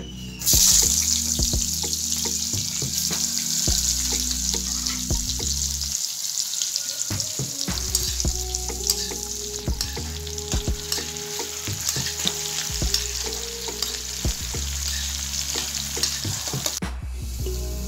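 Sliced red onions sizzling as they hit hot oil in a kadai about half a second in, then frying steadily, with the clicks and scrapes of a spatula stirring them.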